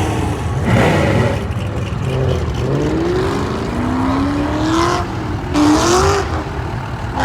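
A car engine accelerating hard past, its pitch climbing, dropping at a gear change about two thirds of the way in, then climbing again.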